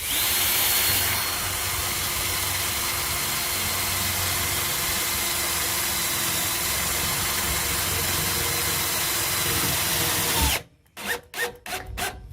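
Power drill driving a small metal screw into steel fence top rail, running steadily for about ten seconds, then stopping suddenly and giving a few short bursts near the end as the screw is snugged down.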